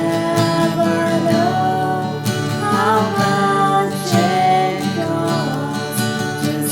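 Worship-band music with no words sung: guitar accompaniment under a sustained melody line that slides between notes.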